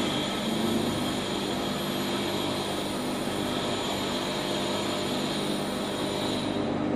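Steady hum and whir of running machinery in a metalworking shop, a constant mechanical drone with a hiss over it.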